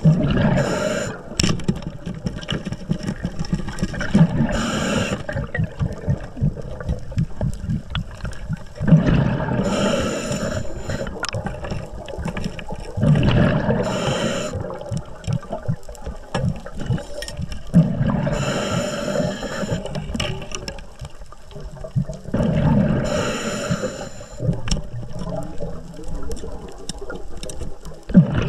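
Underwater breathing of a scuba diver: air bubbles from the regulator's exhaust bubbling out in a burst about every four to five seconds, one burst per breath.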